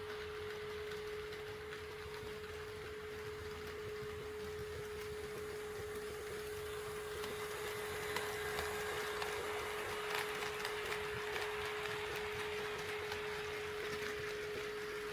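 HO-scale model train running on the layout track, with a steady high hum throughout. Light clicking and rattle of wheels on the rails grows louder about eight seconds in and eases after about twelve seconds.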